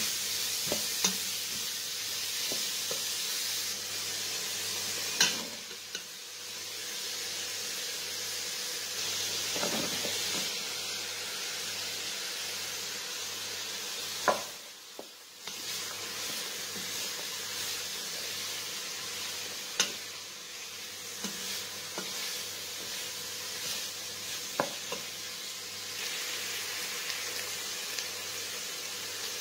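Diced pumpkin, onion and potato sizzling as they sauté in a pot and are stirred with a wooden spoon, with a steady frying hiss. A few sharp knocks of the spoon against the pot come through now and then.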